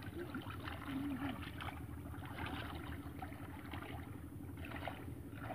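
Hands splashing and sloshing in shallow muddy water as boys grope the bottom for fish, over a steady low mechanical hum.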